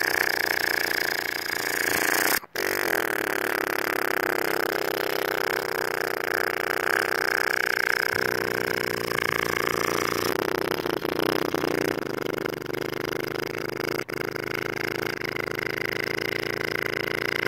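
Motorcycle engine running during a ride, a steady dense drone that rises in pitch about eight to ten seconds in. The sound cuts out for an instant twice.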